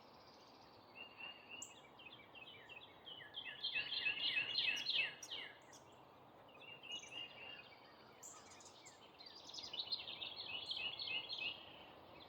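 Songbirds singing outdoors: three runs of quick, repeated downslurred notes, the loudest about four to five seconds in, over a steady background hiss.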